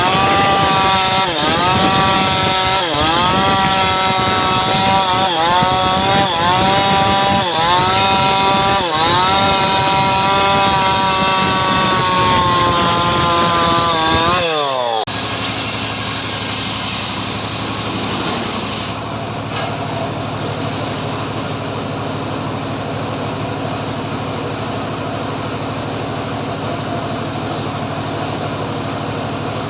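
Homemade chainsaw cutting teak wood: its engine runs at high speed and bogs down and picks up again about once a second as the chain bites into the log. About halfway through, the engine pitch slides down and cuts off, replaced abruptly by a quieter steady mechanical drone.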